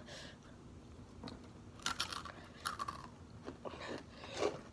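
Crunching and chewing of Takis rolled tortilla chips, with a few sharp crunches about two seconds in and again near the end.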